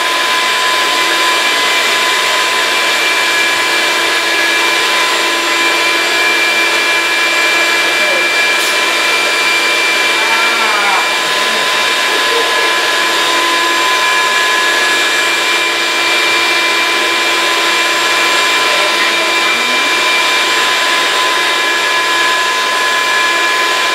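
Vacuum motor of a vacuum-forming table running steadily, a loud whine over a rushing hiss, as it sucks a heated plastic sheet down over a canopy form.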